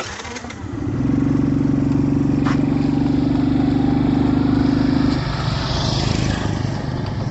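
A small engine running at a steady pitch, loudest for a few seconds and then easing off about five seconds in, with a single sharp click in the middle.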